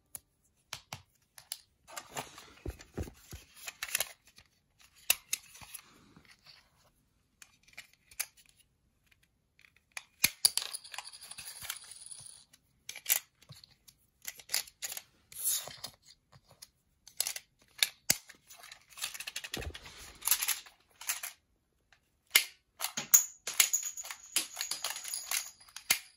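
Sharp plastic clicks and snaps from a toy mini-disc shooter pistol being loaded with small plastic discs and fired, with rattling handling noise in between.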